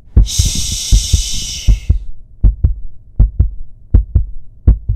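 A heartbeat: low paired lub-dub thumps, steady at about 80 a minute. Over the first two seconds a long hushing 'shhh' starts just after the beginning and lasts about a second and a half.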